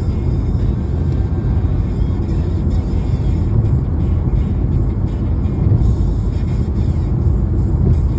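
Steady low rumble of a car driving along the road, with music playing along.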